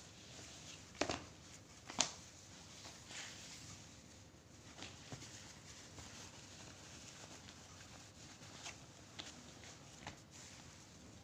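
Quiet handling of a parcel and its contents: scattered soft rustles and light taps, with two sharper clicks about one and two seconds in.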